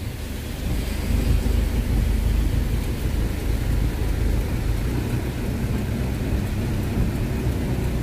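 Car driving on a rain-soaked road, heard from inside the cabin: a steady low rumble of road and engine with the hiss of tyres on wet tarmac and rain on the car.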